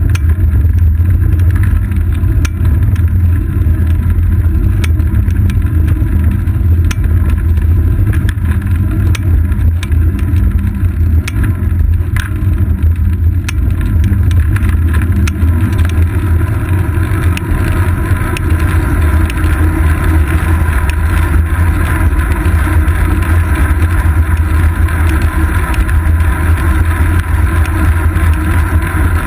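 Steady low rumble of wind and road vibration picked up by a seat-post-mounted GoPro Hero 2 on a moving bicycle, with scattered sharp clicks through the first half.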